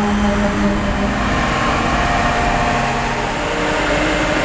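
Engine of a self-loading concrete mixer running steadily, with a steady hum whose pitch shifts a few times.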